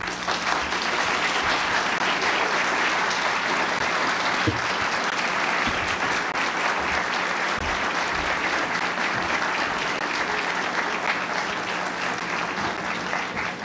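Audience applauding steadily, easing off slightly near the end, over a steady low mains hum.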